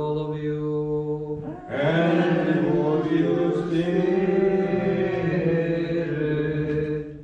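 Orthodox liturgical chanting: sung voices holding long, slowly moving notes. A single held line opens, and from about two seconds in a louder, fuller sound of several voices takes over, fading just before the end.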